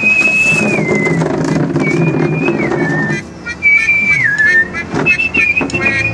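A whistled tune, each phrase holding a high note and then sliding down in steps, over a steady musical backing.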